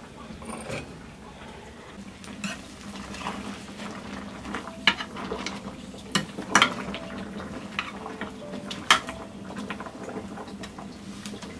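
Metal ladle stirring simmering nettle greens in a metal kadai, scraping the pan, with a few sharp clinks of ladle on pan.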